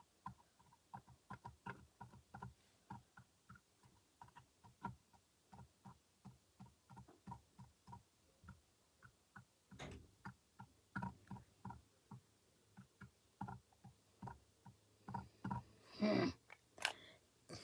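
Light, quick taps of a Posca paint-marker tip dabbing onto a hard surface, two to three a second and unevenly spaced, with a somewhat louder knock about ten seconds in.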